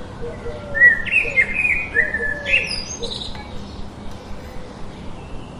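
Birds singing: a few loud, clear whistled phrases about a second in, over fainter chirps and a repeating low call.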